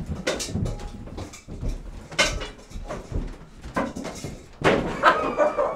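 Several separate clunks and knocks of a door being worked on a set, with a brief voice near the end.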